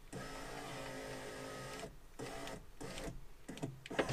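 Electric window motor of a BMW E39 rear door driving the glass on a newly installed window regulator, a steady hum that stops after about two seconds. A short second run follows, and the motor starts again near the end.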